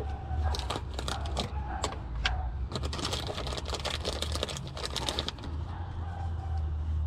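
Rapid, irregular clicking and clinking of small hard parts being handled, thickest in the middle, over a steady low hum.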